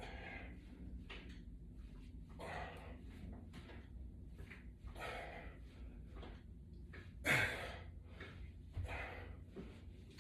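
A man breathing hard through exercise repetitions: soft exhalations about every two and a half seconds, with a louder, sharper breath out about seven seconds in.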